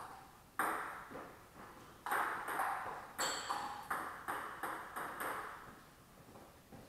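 Table tennis rally: about ten sharp clicks of the celluloid ball striking bats and the table, coming faster in the middle and stopping a little after five seconds in.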